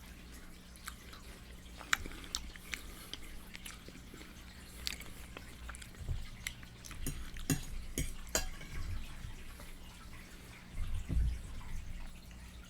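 Close-miked wet chewing and lip smacking of fried chicken: scattered sharp mouth clicks and smacks, thickest in the middle, with a few soft low thumps. A steady low hum runs underneath.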